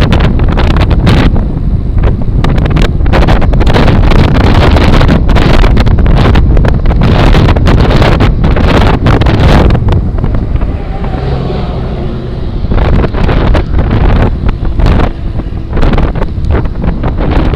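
Heavy wind buffeting on the microphone over the rumble of a gravel bike's tyres rolling on a rough gravel trail. The noise eases briefly about ten seconds in, then returns in gusts.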